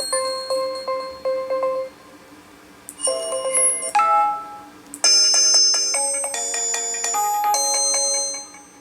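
HTC Desire 610 alarm tones previewed one after another. First a repeating plucked-note pattern that stops about two seconds in, then two brief chimes around three and four seconds in, then a brighter run of chiming notes that stops near the end.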